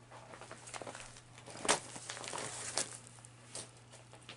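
Packaging crinkling and rustling as purchased stitching supplies are handled close to the microphone, with sharper crackles about a second and a half in and again near three seconds, over a steady low hum.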